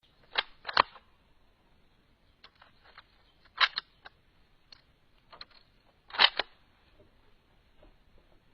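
Old rifle's action being worked by hand: sharp mechanical clicks, in three loud double clicks about three seconds apart with fainter clicks between.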